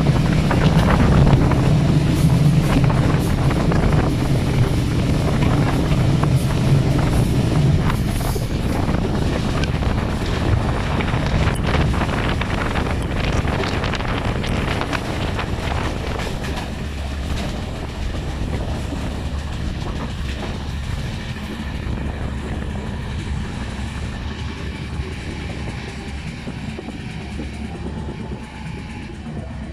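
Passenger train running, heard from an open carriage window: rumbling wheels clattering over rail joints and points, with wind on the microphone. The sound fades gradually as the train slows alongside a station platform.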